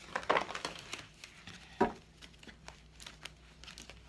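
Tarot cards being handled and shuffled by hand: scattered soft clicks and rustles of card stock, with two louder knocks, one right at the start and a stronger one a little before halfway.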